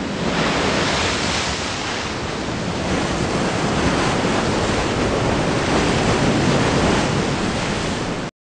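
Ocean surf: a steady rush of breaking waves that cuts off suddenly near the end.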